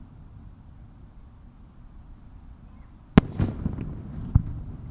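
Aerial firework shells bursting: a sharp bang a little after three seconds in, trailing into a rumble, then a second bang about a second later.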